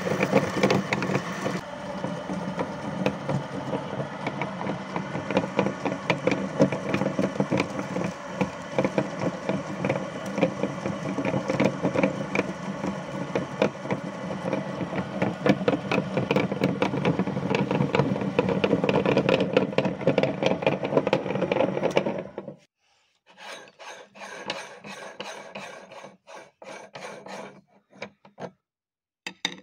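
A motor-driven, belt-driven cast meat grinder running and grinding a Snickers bar through its worm and cutting plate: a steady motor hum under dense rasping and crunching. It cuts off about 22 seconds in, followed by a few soft, broken scraping sounds as the ground candy is picked from the grinder's plate by hand.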